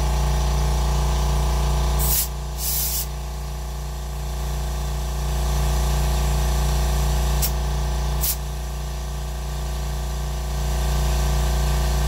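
Air compressor running steadily while its hose chuck feeds air into an ATV tire's inner tube through the valve stem. Short hisses of escaping air come at the chuck: two about two seconds in, and two brief ones around seven to eight seconds in.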